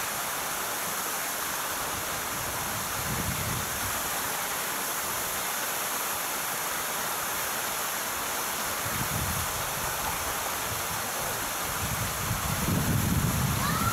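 Steady outdoor background noise, an even rushing hiss, with low rumbles now and then that grow louder near the end, and a faint short rising whistle at the very end.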